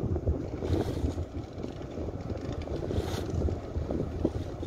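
Low, steady rumble of a boat's engine, with water splashing and wind buffeting the microphone. Brief hissy swells come about a second in and again just after three seconds.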